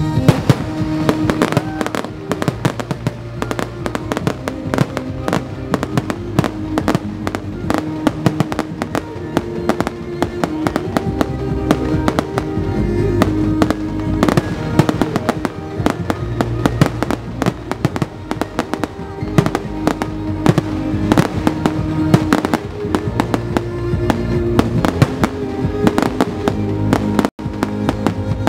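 Fireworks bursting in rapid, irregular succession, with music playing underneath.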